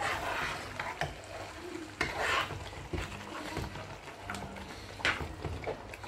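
Metal ladle stirring thick porridge in a cooking pot. It scrapes and knocks against the pot, with three louder scrapes and small clicks between them.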